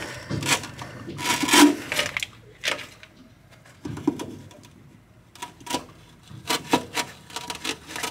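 Handling noise: a series of clicks, knocks and rubbing as a plastic bilge pump and its corrugated hose are gripped, moved and set down on the floor of an aluminum boat.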